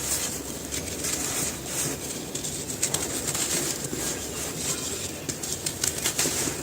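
Dry cement pieces being crumbled and crunched: a dense, irregular crackling of small snaps, with several heavier crunches.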